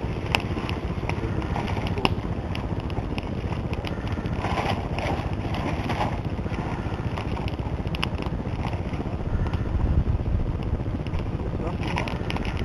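Wood campfire burning, with scattered sharp crackles and pops over a steady low rushing noise.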